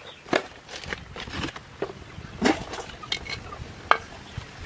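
A few scattered knocks and clinks of metal cooking pots and bowls being handled.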